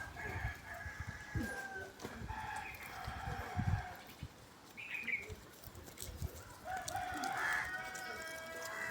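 Rooster crowing: long drawn-out calls, three times, with some low thumps underneath.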